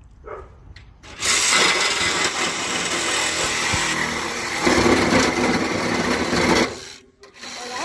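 Power saw cutting scrap metal. It starts about a second in and runs steadily for several seconds, turns deeper partway through, stops briefly near the end, then starts up again.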